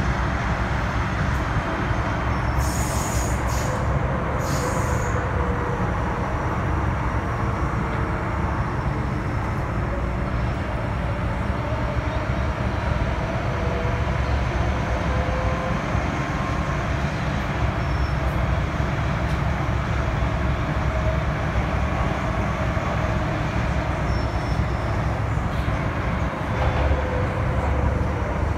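MTR M-Train electric multiple unit running through a tunnel, heard from inside the car: a steady, loud rumble of wheels on track with a faint whine that slowly shifts in pitch. A few short hisses come about three to five seconds in.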